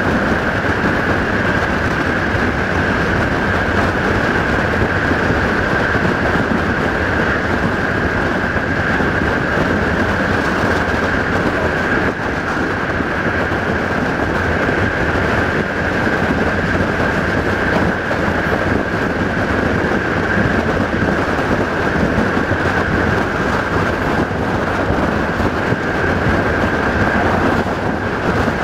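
CFR passenger coach running fast on the rails: a steady rolling roar of wheels on track, with a constant high-pitched ring over it.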